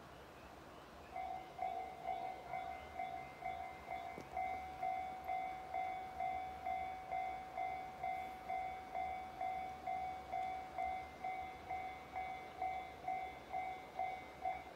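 Railway level-crossing warning bell ringing, an even repeated clang at about two strikes a second that starts about a second in, the crossing's signal that a train is approaching.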